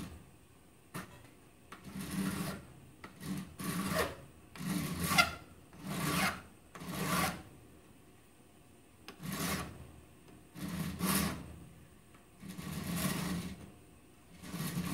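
Mill bastard file rasping across the hacksawn steel muzzle of a Norinco Type 56 SKS barrel, about a dozen separate strokes with a short pause midway. The filing takes off the overhanging metal left by the cut to square up the barrel face.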